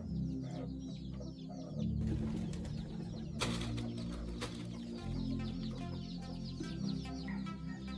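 Music with steady low sustained notes, overlaid with a dense, continuous chatter of short bird-like chirps.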